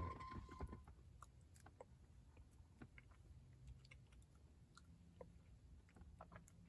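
Near silence with faint, scattered small clicks and rustles of fingers handling a rolled blunt.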